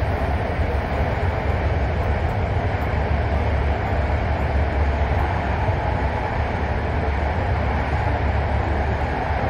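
Steady deep rumble and hiss inside a running subway car.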